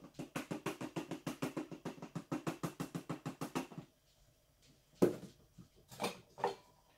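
Hand-squeezed flour sifter being worked over a bowl of flour: a fast, even rattling clatter of about six strokes a second that stops about four seconds in. A few knocks follow as kitchen utensils are set down and picked up.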